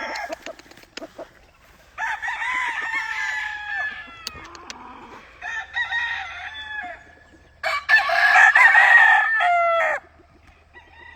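Gamefowl roosters crowing: three long crows, starting about two seconds in, near six seconds and near eight seconds, the last the loudest and ending in a few falling notes.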